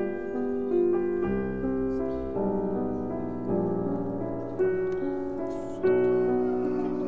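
Background piano music: slow, gentle notes and chords, a new one struck roughly every second.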